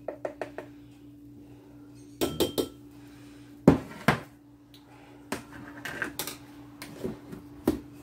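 Plastic measuring spoon clicking, tapping and scraping against a can and a small glass bowl as powder is scooped out: a string of sharp clicks and clinks, the loudest about three and a half seconds in, over a faint steady hum.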